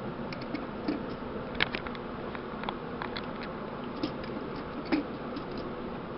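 Light, irregular clicks and taps of plastic LEGO pieces and a minifigure being handled and set down on a hard shelf, over a steady faint hiss.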